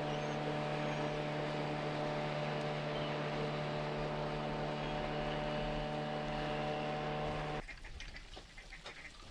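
A motor running with a steady hum on one fixed pitch, which cuts off suddenly about seven and a half seconds in. Faint waterfowl calls can be heard behind it.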